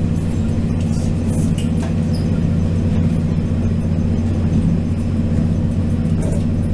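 Steady running noise inside a Taiwan Railway DR2900/3000 diesel railcar at speed: a low, even diesel drone over the rumble of the wheels on the track.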